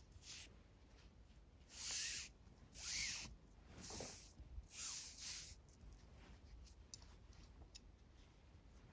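Nylon paracord rustling as it is drawn through the fingers and straightened: four soft swishes about a second apart, then a few faint ticks.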